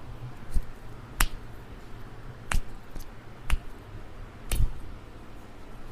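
Sharp cracks and clicks during hands-on chiropractic manipulation: about six single snaps, a second or so apart.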